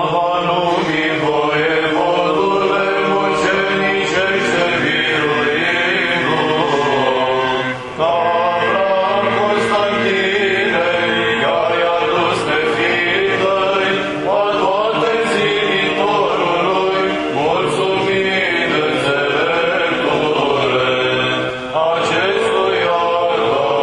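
Orthodox liturgical chant from a paraclis service, sung in long melodic phrases with short breaks about 8, 14 and 22 seconds in.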